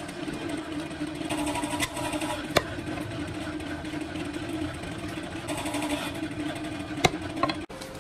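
A steady machine hum runs underneath three sharp metallic knocks, about two seconds in, a moment later, and about seven seconds in: a hatchet striking scrap wire on a chopping block. The sound cuts off abruptly just before the end.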